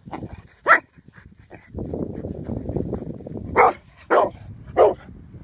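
Dog barking: a single bark about a second in, then a run of barks about every half second through the second half. Between them is a stretch of low rough noise.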